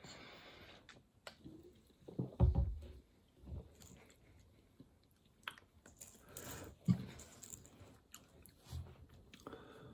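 Mostly quiet, with faint mouth sounds of sipping and swallowing soda from a plastic bottle. There is a soft low thump about two and a half seconds in, and a few light knocks and rustles later.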